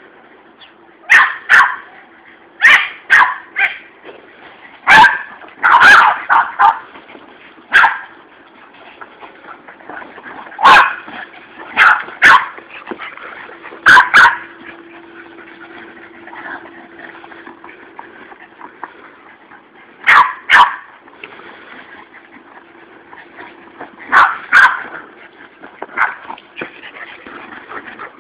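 Boston terrier barking excitedly during ball play: sharp, short barks, mostly in quick pairs or small clusters, with pauses of a few seconds between them.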